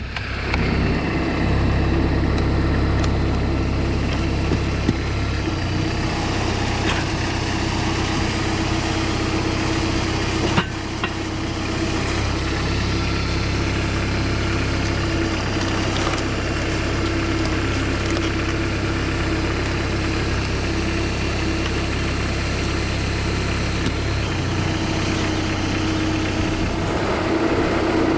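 Homemade tractor's engine running steadily, powering a homemade hydraulic log splitter. There is a single sharp knock about ten and a half seconds in.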